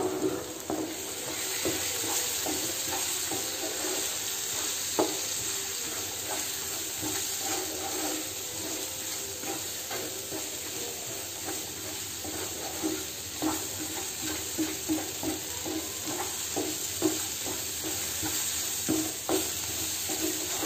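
Onion, tomato and coconut masala sizzling in a nonstick frying pan while a wooden spatula stirs it, with frequent short scrapes and taps against the pan over a steady frying hiss.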